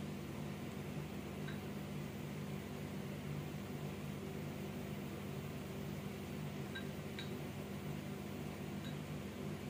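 Steady low mechanical hum from a fan or appliance, with a few faint light clinks from a glass bowl of water being handled as a pastry brush is dipped.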